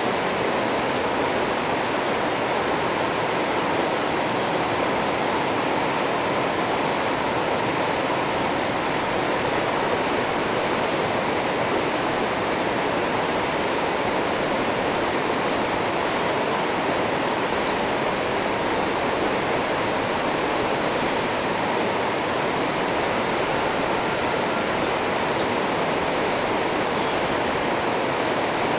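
River water rushing steadily over a shallow rocky rapid, a constant, even sound of moving water.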